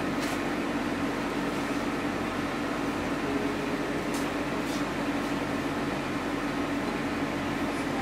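Steady room background hum and hiss, with a few faint, brief rustles.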